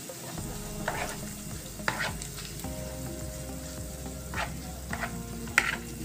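Metal spoon stirring freshly microwaved mutton keema in a plastic bowl: a moist mixing sound with several sharp clicks as the spoon knocks and scrapes against the bowl.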